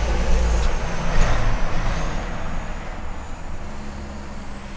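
Tractor-trailer truck passing close by: diesel engine rumble and tyre noise, loudest about a second in, then fading away.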